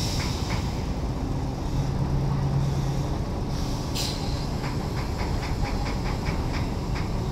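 Heavy diesel engines running at a steady drone as a truck-mounted crane hoists a shipping container. About four seconds in comes a short sharp hiss of released air, then a run of quick, even clicks, about three or four a second.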